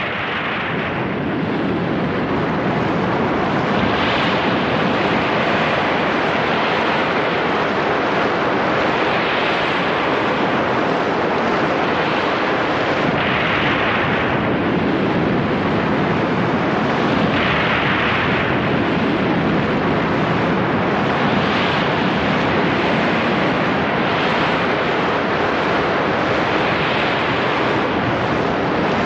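A loud, steady rushing noise that swells and ebbs every two to four seconds, surf-like, from the dance's accompanying soundtrack.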